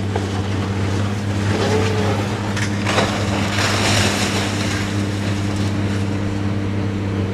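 Demolition excavator's engine running steadily, with a sharp knock about three seconds in followed by a second or so of crunching, crashing debris.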